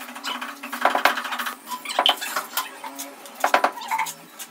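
Steel hand trowel scraping and chopping through a damp sand-cement mortar bed, in several runs of quick, gritty scrapes and metallic clinks as the bed is spread for a granite floor slab.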